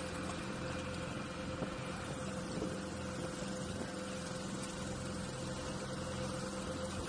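Skiff outboard motor idling with a steady low hum.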